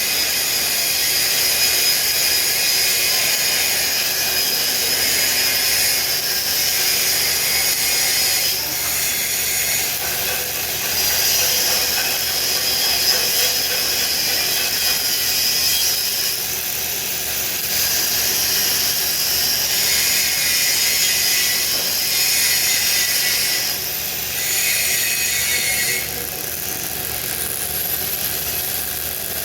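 MIG welding arc crackling and hissing steadily, with the hiss growing stronger and weaker several times as the weld runs.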